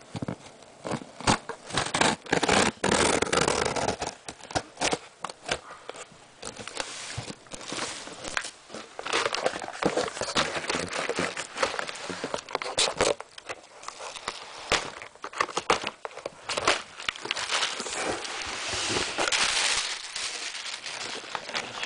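A cardboard shipping box being opened and its crumpled packing material rustled and crinkled by hand, with many sharp crackles and handling knocks.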